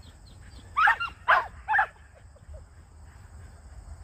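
A dog barking, three sharp barks in quick succession about a second in, roughly half a second apart.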